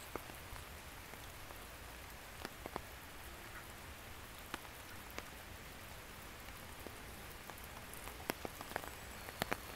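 Rain falling on the garden's leaves and ground: a steady even hiss with separate nearby drops ticking now and then, more often near the end.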